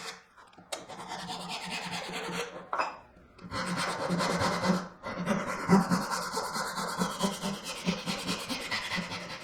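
Hand saw cutting through walnut along the miter of a dovetail joint, with steady rasping strokes. The cutting runs in three long stretches, broken by brief pauses about three and five seconds in.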